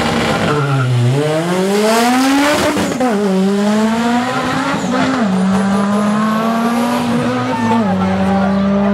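Drag-racing car's engine launching from the start line: the revs dip about a second in, then climb hard, with gear changes about three and five seconds in, after which the engine holds a steady note.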